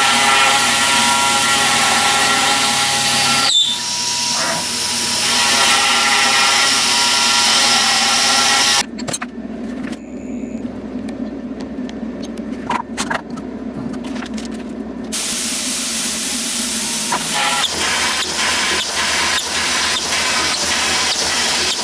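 CNC machine's stepper motors running, a whine of several steady tones over a hiss. The sound changes abruptly about four and nine seconds in, turning quieter with sharp clicks, then back to a hissing run with ticks.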